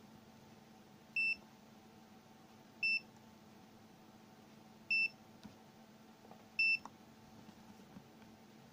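HYELEC MS8232 digital multimeter's built-in buzzer giving four short, high-pitched beeps about two seconds apart, each confirming a press of its buttons.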